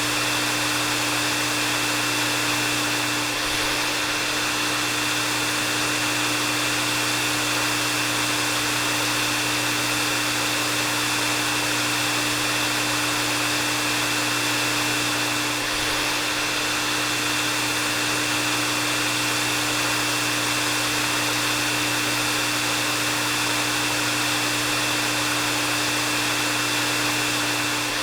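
Hair dryer running steadily: an even rush of blown air with a constant high-pitched motor whine and a low hum beneath it.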